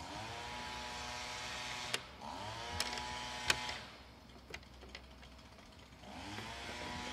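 Leaf blower engine running, its pitch rising and levelling off three times (at the start, a couple of seconds in, and near the end), with a quieter lull in between. A few sharp clicks come through in the middle.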